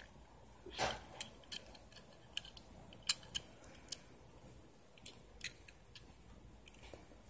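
Faint, irregular small clicks and taps from fingers handling and turning a Tomica die-cast Mitsubishi Outlander PHEV model car, its metal body and plastic wheels knocking against fingernails. There is a brief louder rustle about a second in.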